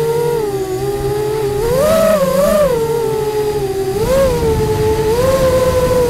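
Multirotor drone's electric motors and propellers whining. The pitch swells with the throttle twice, around two seconds in, rises again about four seconds in, and then holds steady.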